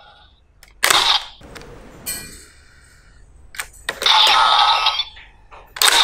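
Diend Driver toy gun, a 20th-anniversary reissue, playing its electronic sound effects, with sharp plastic clicks as it is handled and a rider card is loaded.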